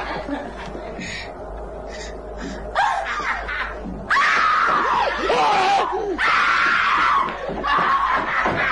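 A person screaming: a few short cries about three seconds in, then long, loud, high screams that bend in pitch, after a quieter start.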